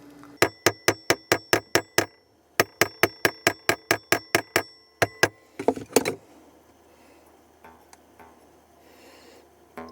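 Hammer striking metal in quick runs of about five blows a second, each blow with a short, high metallic ring. There are two runs of eight or nine blows, then a few more hits about six seconds in, then it goes quiet.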